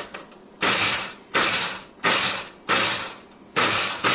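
Glass-jar countertop blender pulsed in short bursts, five in a row about every 0.7 s, each one starting sharply and dying away. It is grinding soaked rice and urad dal with a little water into a thick dosa batter.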